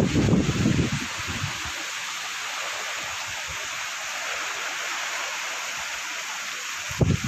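Heavy rain falling in a steady hiss, with low rumbling for the first second or so and again briefly near the end.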